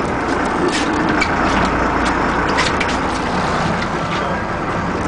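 Sportfishing boat's engines running steadily under a wash of wind and water noise, with a few short, sharp sounds.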